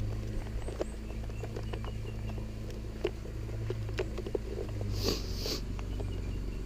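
Small clicks and rustles of wiring and plastic trim being handled, over a steady low hum, with a short sniff about five seconds in.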